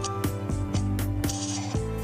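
Background music with a steady beat, pitched notes over regular drum hits.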